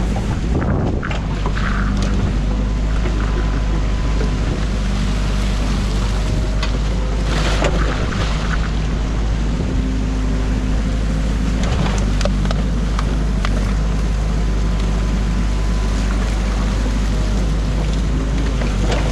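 Compact excavator's diesel engine running steadily, heard from the operator's cab, with a few knocks and scrapes as the bucket digs through the silt and sticks of a beaver dam. Water rushes through the breach underneath.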